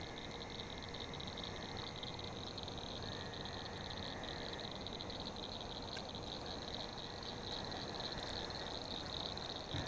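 Frogs calling in a steady night chorus, a high, rapidly pulsing trill.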